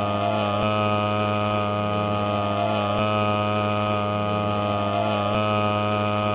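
Loud, steady droning hum made of many held tones stacked together, with a faint pattern that repeats about every two and a half seconds.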